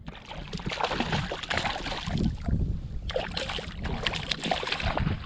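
A hooked tailor thrashing at the surface as it is brought to a landing net beside a kayak, with irregular splashing and sloshing water throughout.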